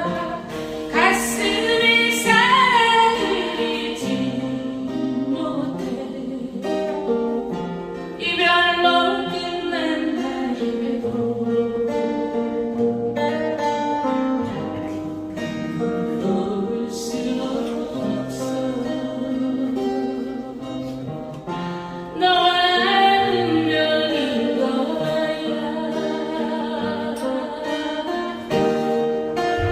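A song sung with vibrato over guitar accompaniment, the voice coming in phrases with instrumental passages between them.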